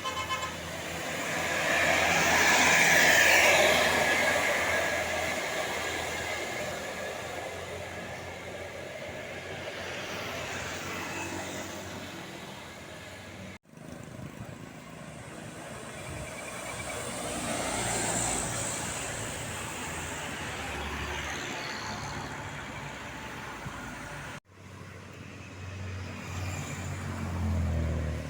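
Buses passing by on a road, each swelling as it approaches and fading away. The first pass is the loudest, and the sound breaks off abruptly twice, at about halfway and again near the end, as new passes begin.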